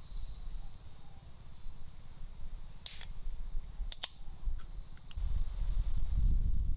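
A steady, high-pitched insect chorus buzzes, with two sharp clicks near the third and fourth seconds; the second click falls as the pull tab of a soda can is snapped open. About five seconds in the insect buzz stops and low wind rumble on the microphone takes over.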